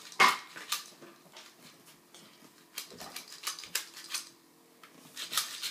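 Scattered sharp clicks and light taps of small hard parts being handled, irregular and with short quiet gaps between them.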